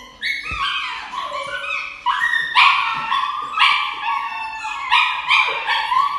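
A dog giving a string of high-pitched whining, yelping cries, about one a second.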